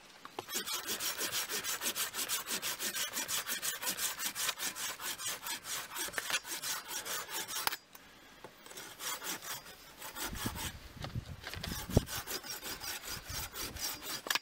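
Rico pruning saw (model RC2250) cutting through a green walnut branch in quick, even strokes. A short break about halfway, then the sawing resumes, with a single sharp knock in the last third.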